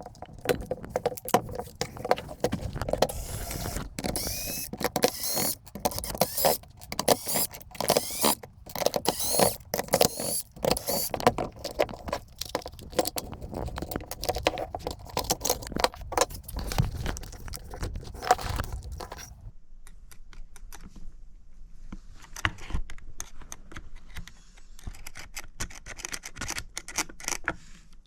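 Parts of a MAX TG-Z4 battery stapler being handled during repair: many irregular clicks, taps and scrapes of small hard parts. They thin out and grow quieter about two-thirds of the way through.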